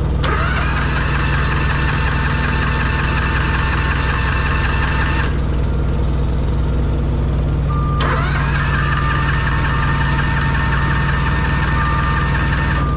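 Pony motor being cranked twice by its electric starter. Each attempt spins up with a rising whine, holds steady for about five seconds, then cuts off without the engine catching. The drivers think the motor is not getting fuel to the carburetor. A steady low diesel idle hum runs underneath.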